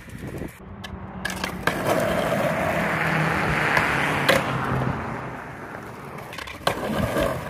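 Skateboard wheels rolling over rough, cracked asphalt, with the sharp clack of the board popping about four seconds in, and the board clattering onto the pavement near the end.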